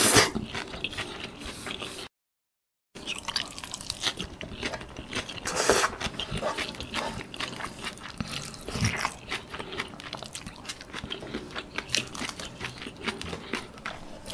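Close-miked eating sounds from a mouthful of pad thai noodles and bean sprouts: a slurp as noodles are sucked in at the start, then wet chewing with crunchy crackles and small clicks. A brief cut to dead silence comes about two seconds in.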